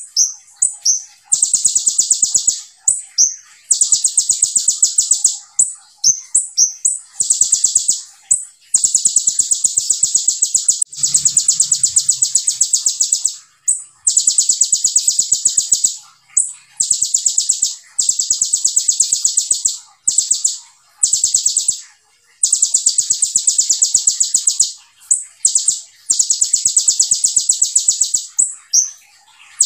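Male Van Hasselt's sunbird (kolibri ninja) singing: long, high, very rapid rattling trills of one to three seconds each, following one another with short breaks.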